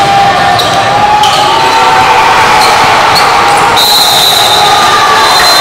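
Basketball being dribbled and bounced on the court during a game, over a dense, steady background of court and crowd noise.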